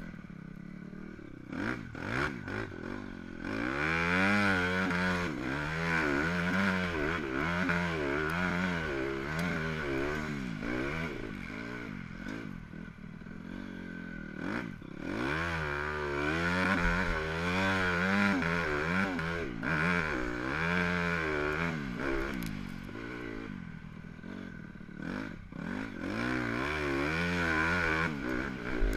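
Motocross bike engine ridden hard, heard from on the bike, its revs rising and falling over and over in quick sweeps as the throttle is worked. It eases off for a few seconds around a third of the way in and again late on, then picks up.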